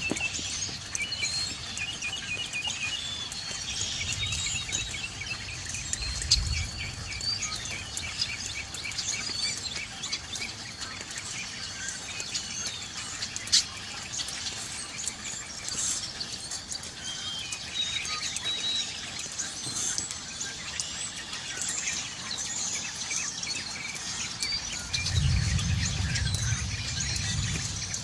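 A mixed flock of songbirds (red-winged blackbirds, robins, starlings) chirping and singing over one another without a break. A low rumble of distant thunder comes twice, about four seconds in and again near the end, and there is one sharp click about halfway through.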